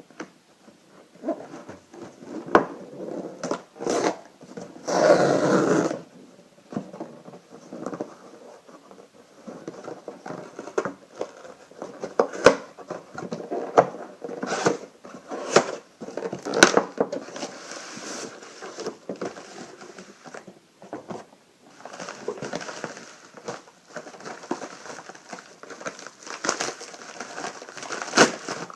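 Paper and cardboard packaging being handled: crinkling and rustling with scattered taps and knocks, and a longer, louder rustle about five seconds in.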